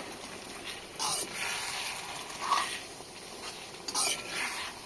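Chicken and bottle gourd curry cooking in a pan with a faint sizzling hiss, broken by three brief utensil sounds about a second and a half apart.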